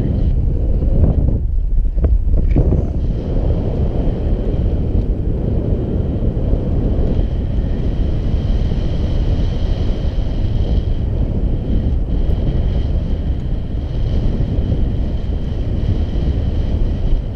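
Airflow buffeting a GoPro Hero 4 Black's microphone in paraglider flight: a loud, steady low wind rumble.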